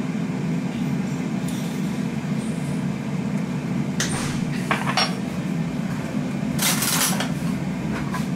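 A metal spoon clinking against a small glass spice jar and the jar knocked down onto a worktop: a few short clinks and taps, a cluster about four to five seconds in and another near the end. Under them runs the steady low hum of an air fryer cooking.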